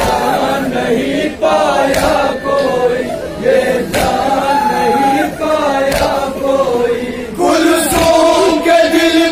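A group of men chanting a Shia noha in unison, with a chest-beating thump (matam) about every two seconds that keeps time.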